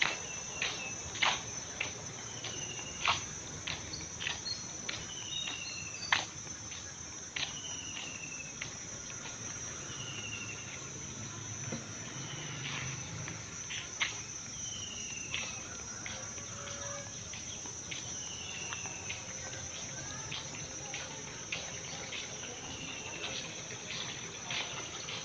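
Steady high-pitched drone of insects such as cicadas or crickets, with a short falling whistle repeated every two to three seconds and scattered sharp clicks, more frequent in the first seconds.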